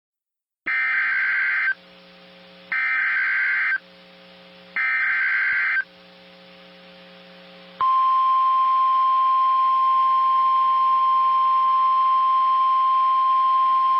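Emergency Alert System broadcast tones. Three one-second bursts of buzzing digital header data come about a second apart. Then, nearly eight seconds in, a loud steady single-pitch alarm tone starts and holds: the weather radio's warning alarm, heralding a severe thunderstorm warning.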